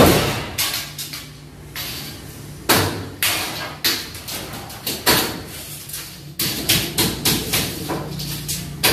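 Hammer blows on a building site: about fifteen sharp strikes at uneven intervals, some in quick pairs.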